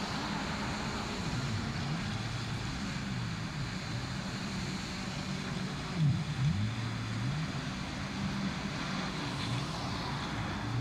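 Engines of several racing jet skis, their whine rising and falling in pitch as the riders throttle through the turns, with a louder swell about six seconds in.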